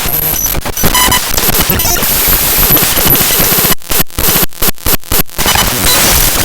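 The raw bytes of the avcodec.dll library file played directly as audio: loud, harsh digital noise with short steady tones popping in and out. A little past halfway it breaks into a run of brief, abrupt drop-outs.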